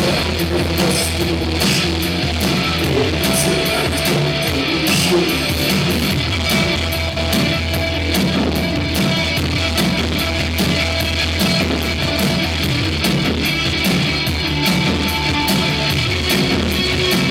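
Live rock band playing an instrumental passage with electric guitar and drums, without vocals.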